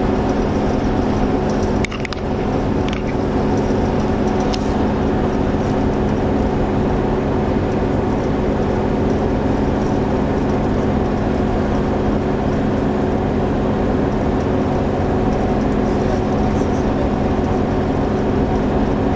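Steady drone of a vehicle's engine and road noise, heard from inside the moving vehicle, with a few short knocks about two to five seconds in.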